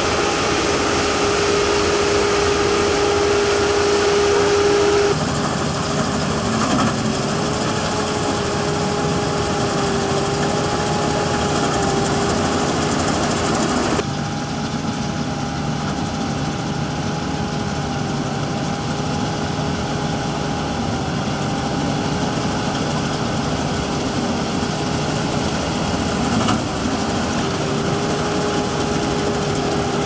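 Combine harvester running as it cuts barley: a steady mechanical drone with a held whine that wavers slightly. The sound changes abruptly about five seconds in and again about fourteen seconds in.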